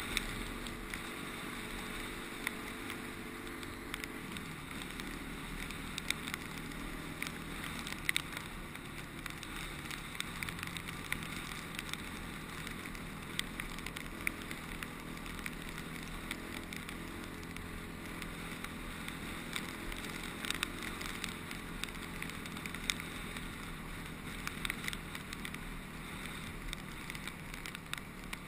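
Honda CRF250X's single-cylinder four-stroke engine running at a steady road speed, heard from the rider's helmet, with wind noise and scattered ticks of gravel. The engine note drops about four seconds in, then holds steady.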